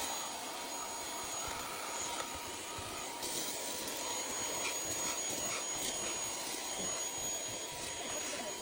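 Handheld mini vacuum cleaner running steadily: an even rushing of air with a faint high whine from its small motor.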